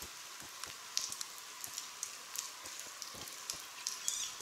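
Light rain pattering: a steady hiss with scattered soft, irregular taps of drops.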